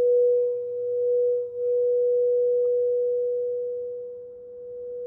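Crystal singing bowl ringing one steady, pure tone, its loudness swelling and dipping, sinking low about four seconds in and then rising again.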